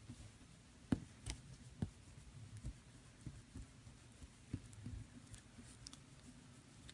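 Scattered soft taps and clicks, the loudest about a second in, over faint room tone.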